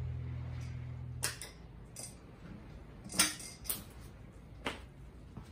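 Final chord of a Gibson acoustic guitar ringing out and fading, then cut off about a second in. It is followed by a few sharp knocks and clunks from the guitar and microphone stand being handled, the loudest about three seconds in.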